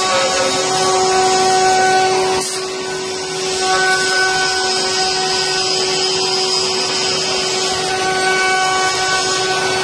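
5-axis CNC wood router's spindle whining steadily while its bit carves a wooden leg, with the hiss of the cut. The sound dips for about a second some two and a half seconds in, then picks up again.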